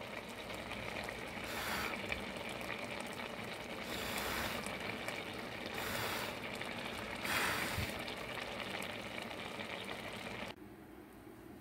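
Pot of bulgur wheat 'rice and peas' boiling hard, a steady bubbling hiss that swells louder every couple of seconds. It cuts off suddenly near the end, leaving only faint room hiss.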